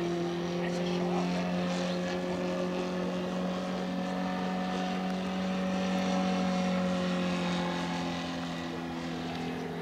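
Roto 85 four-stroke boxer engine of a 1/3-scale Fokker Dr.1 model triplane running steadily in flight, a propeller drone that grows a little quieter near the end.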